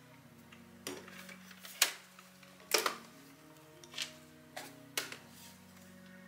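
Plastic body of a robot vacuum knocking and clacking against a table as it is handled and turned over: about six sharp knocks, the loudest about two and three seconds in, over soft background music.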